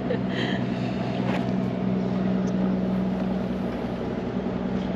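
Boat engine running steadily at low revs, a constant low hum while motoring in the harbour.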